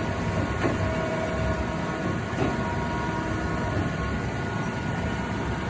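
HEM V100LA-3 vertical band saw running under power: a steady machine hum with a few constant tones over a low rumble. Two short knocks come about a second and two seconds in.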